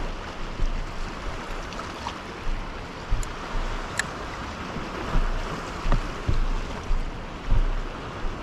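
Sea water lapping and slapping against the hull of a drifting kayak, with irregular dull knocks and a couple of short sharp ticks.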